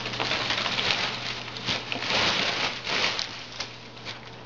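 Cats play-fighting: a dense, scuffling patter of paws and bodies against a surface for about three seconds, then dying down near the end.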